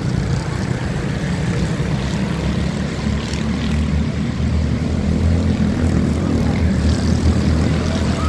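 Senior Honda quarter midget race cars' small single-cylinder Honda engines droning together as the field laps the oval, a little louder in the second half as the pack comes closer.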